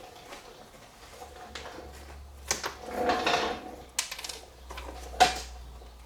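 Objects being handled and set down: a few sharp knocks and clicks, the loudest about five seconds in, with a brief scraping rustle a little after the midpoint.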